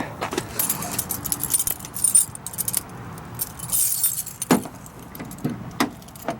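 A bunch of keys jangling on a key ring while a key is worked in a Chevy S-10's lock cylinder, with several sharp clicks in the second half. The key being tried is one for a Saturn, the wrong key for the lock.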